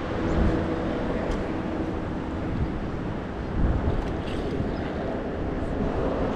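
Wind buffeting the microphone on open water, an uneven low rumble, with a faint steady hum during the first half.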